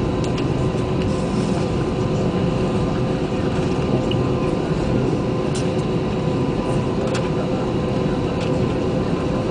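Airbus A320 cabin noise while the plane rolls slowly on the ground: a steady hum of the idling jet engines and air conditioning, with a few steady tones in it. A few light clicks or rattles come and go.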